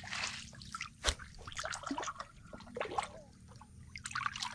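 Hands working in shallow muddy water: irregular splashing, sloshing and dripping, with a sharp knock about a second in.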